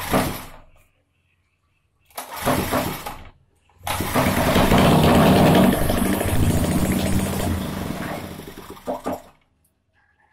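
Small single-cylinder overhead-valve engine, running with its valve cover off and the rocker arms exposed. After two short bursts of sound, it runs with a rapid, even pulse for about five seconds, fading, then stops.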